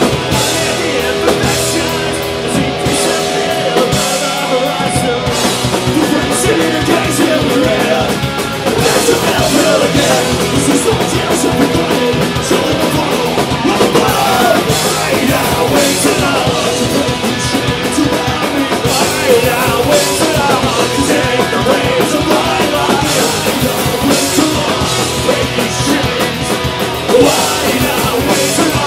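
Punk rock band playing live: electric guitars, bass guitar and a drum kit, with vocals over them.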